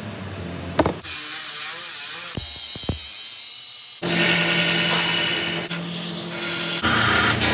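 Power tools working steel, in short bursts cut one after another, with a couple of sharp knocks about two and a half to three seconds in.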